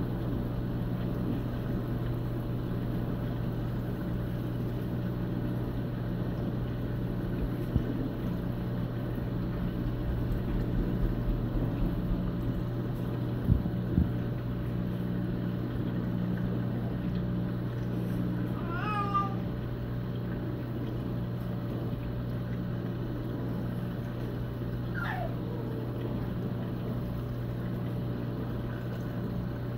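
Steady low hum of reef-aquarium pumps and filtration running. Two short knocks come about halfway through, and two brief high-pitched sounds that glide in pitch come later.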